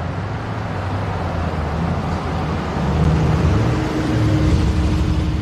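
A car's engine and road noise, a steady low rumble that swells louder about three seconds in and eases off near the end.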